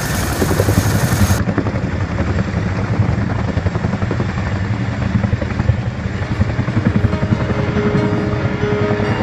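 CH-47 Chinook tandem-rotor helicopter's rotors beating rapidly and steadily as it lifts off and hovers low. Music fades in during the last couple of seconds.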